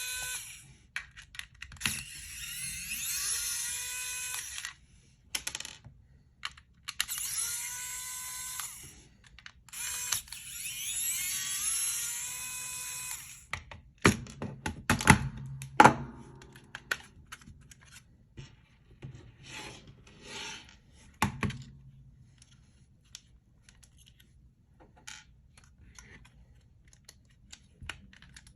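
Small electric screwdriver backing out the Torx T8 screws of an Xbox One controller, its motor whining up in pitch and holding steady in several runs of a few seconds each. After that come a few loud knocks and then scattered light clicks of screws and plastic being handled.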